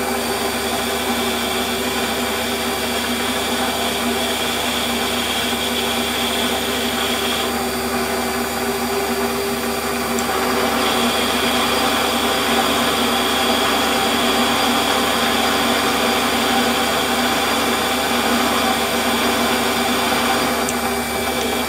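Warco metal lathe running steadily with its motor and gear hum while a turning tool takes a light cut on a spinning aluminium part. A higher thin note from the cut drops out for about three seconds in the middle and comes back a little louder.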